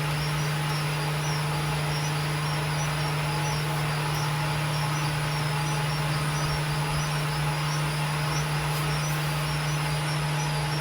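Steady mechanical drone: a strong low hum with an even hiss over it, unchanging throughout.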